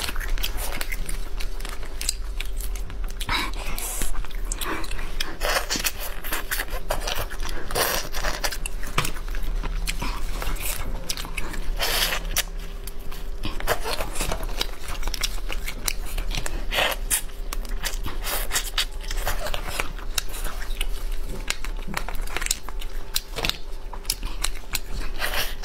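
Boiled crayfish being eaten close to the microphone: shells cracked and pulled apart by gloved hands, with sucking and chewing, and many sharp crackles throughout.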